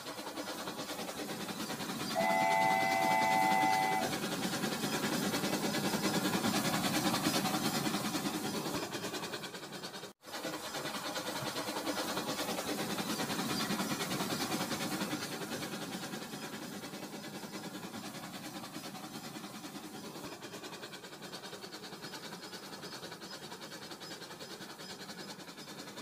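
Remote-control toy train running on plastic track, giving a steady running noise; about two seconds in, its electronic whistle sounds once for about two seconds.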